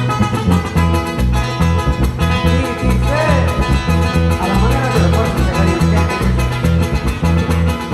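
Loud amplified Latin dance music with plucked guitars over a steady bass line, with a lead line of gliding, wavering notes about three to five seconds in.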